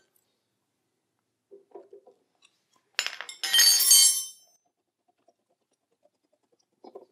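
A steel combination wrench set down with a sharp clatter about three seconds in, ringing and clinking brightly for about a second. Faint knocks of hands handling the flywheel puller come before and near the end.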